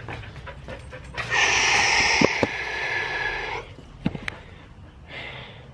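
A husky panting after a run, in short breaths about twice a second. It is covered for about two seconds in the middle by a louder steady hiss.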